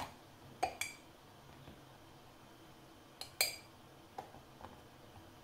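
Kitchenware clinking: a glass and spoon knocking against a saucepan as flour is measured into it for a béchamel, with a few sharp clinks that ring briefly, in two close pairs and some lighter taps.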